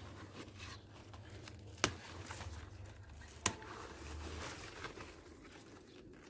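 Collard (couve manteiga) leaf stalks being snapped off the plant by hand: two sharp snaps about a second and a half apart, with leaves rustling in between.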